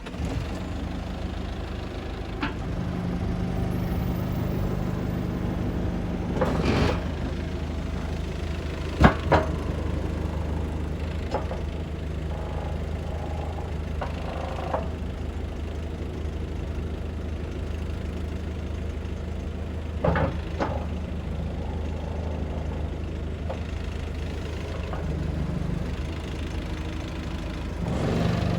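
Diesel engine of a Mitsubishi BD2J2 bulldozer running steadily at idle, with a few sharp metallic clanks. The loudest clank comes about nine seconds in.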